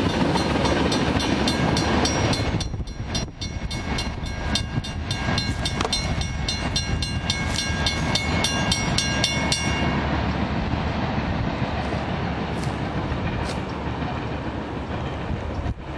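Freight train of tank cars rolling past, the wheels rumbling on the rails. A grade-crossing bell rings over it in rapid, even strokes and stops about ten seconds in as the train clears the crossing.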